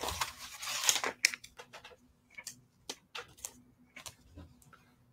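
Hands folding a pair of stretchy leggings on a cloth-covered table: soft rustling of the fabric, with scattered light clicks and taps.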